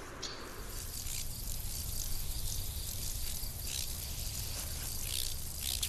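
Meadow insects chirring steadily, with a few sharper chirps standing out, over a low rumble.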